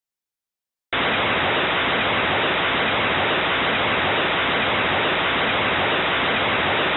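Harsh, unchanging static-like roar that cuts in suddenly about a second in. It is the turbocharged Civic's exhaust on anti-lag at the two-step rev limiter, so loud that the recording is overloaded and the individual bangs merge into solid distorted noise.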